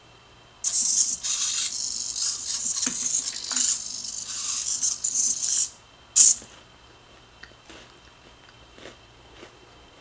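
TowerPro SG90 micro servos of a small robot arm buzzing and whirring in stops and starts as the arm moves for about five seconds. A short sharp burst comes just after, then a few faint ticks.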